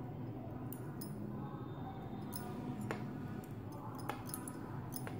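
Knitting needles clicking lightly against each other, a scattered run of sharp little clicks as stitches are knitted and bound off one by one.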